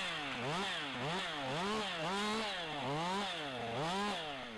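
Two-stroke chainsaw engine revving up and down about twice a second in short throttle bursts, as in limbing: cutting the remaining branches off a felled stem.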